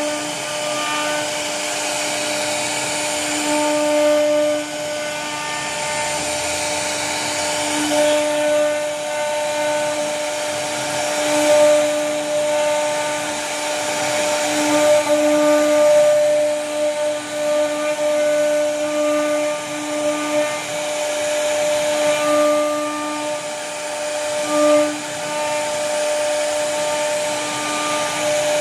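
CNC router spindle carving wood: a steady whine over a hiss of cutting noise. The whine's tones drop in and out and the loudness swells and eases as the bit works along the carving.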